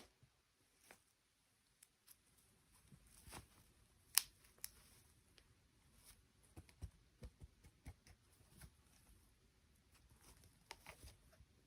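Faint handling noises: scattered light clicks and taps of small objects being handled, with one sharper click about four seconds in.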